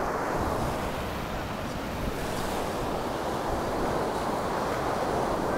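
Surf breaking on a sandy beach, a steady rush of waves, with wind buffeting the microphone.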